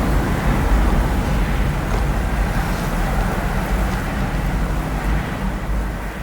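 Tornado sound effect: a heavy, rumbling rush of wind, strongest in the low end, easing off slightly near the end.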